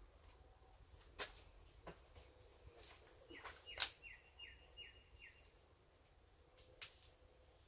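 Scattered sharp clicks and snaps of plant stems being picked from a climbing vine, about six in all. Midway a bird gives four short, quick chirps, each falling in pitch.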